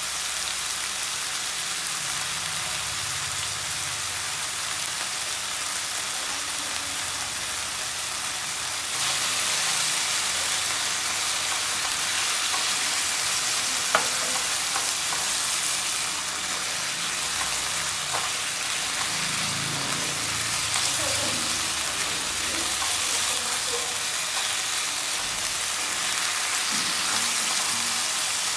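Beef cubes sizzling as they fry in a nonstick wok and are stirred with a spatula. The sizzle steps up about nine seconds in and stays steady, with one sharp click near the middle.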